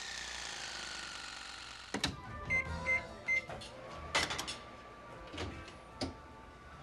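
Kitchen appliance sounds. A whir falls in pitch over the first two seconds, followed by a click, three short electronic beeps, a burst of clicks, and a steady hum from about four seconds in, with two more clicks near the end.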